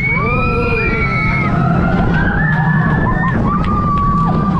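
Riders screaming and whooping in long, high, wavering cries on a Gerstlauer family steel roller coaster, over the steady low rumble of the train running along the track.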